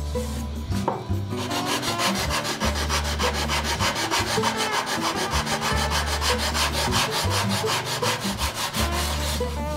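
Sanding block rubbed quickly back and forth along the binding at the edge of an acoustic guitar's top. It makes fast, even, rhythmic scraping strokes that start about a second in and stop near the end.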